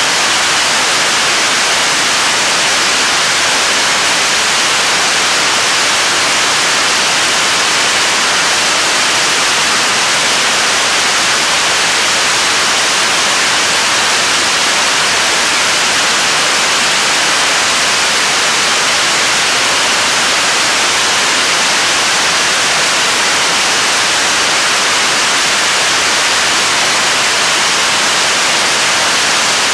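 KSLV-II third-stage 7-tonne-class kerosene–liquid-oxygen rocket engine firing steadily mid-way through a 320-second hot-fire test: a loud, unbroken hissing rush of exhaust that holds the same level throughout.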